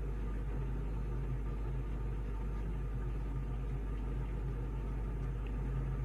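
A steady low hum with no other distinct sounds.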